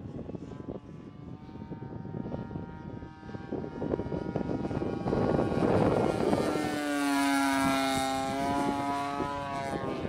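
Seagull Models Lazer 200 RC plane's engine and propeller running steadily in flight. The buzz grows louder as the plane comes by low, peaks about six to eight seconds in, then eases a little as it moves away.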